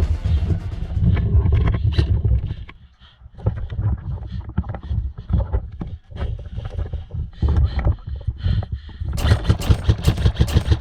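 Airsoft gun shots: scattered clicks, then a rapid run of shots near the end, over a low rumble of wind and movement on the body-worn camera.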